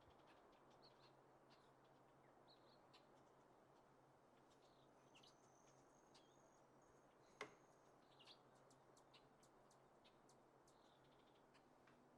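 Near silence: faint ambience with scattered soft high chirps and ticks, and one sharper click about halfway through.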